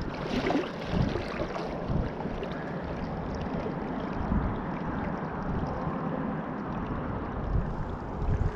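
Steady rush of a shallow, rocky river flowing past, with wind buffeting the microphone at times.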